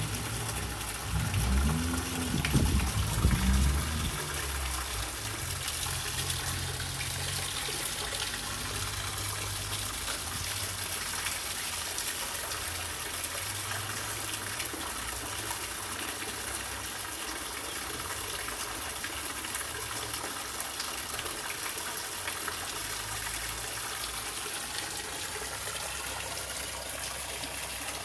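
Water gushing steadily, collected rainwater pouring into a container.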